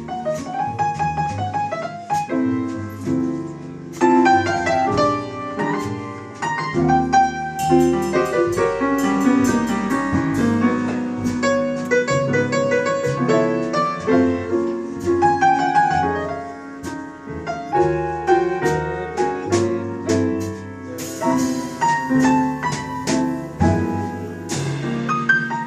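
Live jazz quartet with the piano taking the lead in quick runs of notes over bass, and drums with cymbal strokes keeping time.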